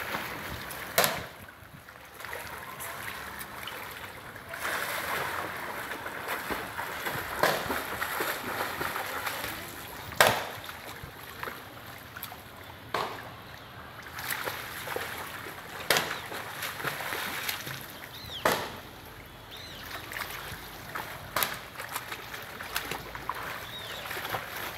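Swimmers splashing and kicking in a pool: a steady wash of churned water with sharp, loud splashes every two or three seconds.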